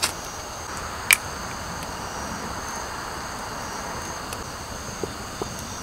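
Steady high chirring of insects over a soft hiss, with one sharp click about a second in and a few faint ticks near the end.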